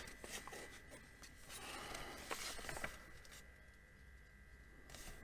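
Faint rustling of paper with a few light clicks, as a printed manual is handled and its pages turned, in the first half. A faint steady high tone sounds from about halfway through.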